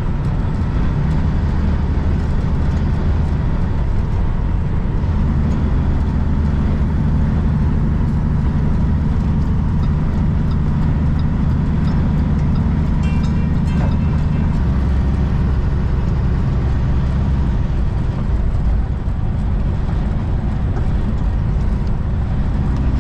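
Heavy diesel truck engine running under way with road noise, a steady drone whose pitch shifts twice.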